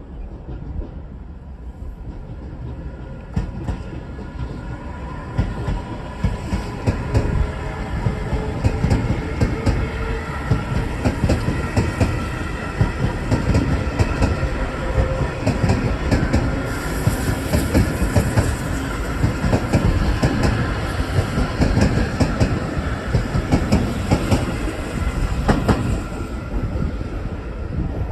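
Electric train passing close by on the track, its wheels clattering over rail joints in repeated clicks. The sound swells over the first several seconds and then holds loud and steady for most of the passage.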